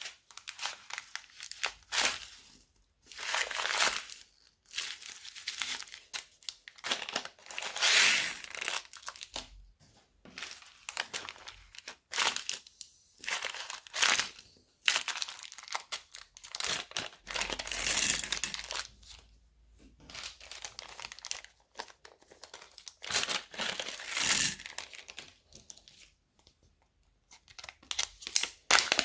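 Plastic bags crinkling as they are squeezed and handled, in repeated crackly bursts of a second or two with short pauses between.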